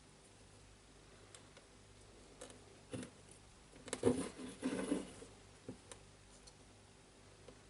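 Parts of a cordless jigsaw being handled on a workbench during a motor swap: scattered light clicks, a knock about three seconds in, then a short burst of clattering and knocking about four to five seconds in.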